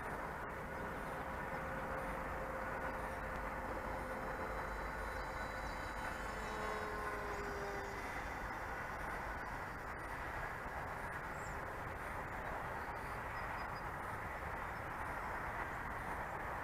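Steady rush of air over a camera riding on a radio-controlled model airplane in low, fast flight, with faint thin tones that come and go.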